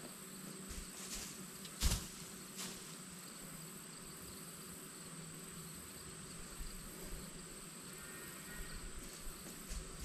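Steady high chirring of insects, with one dull thump about two seconds in and a softer one just after.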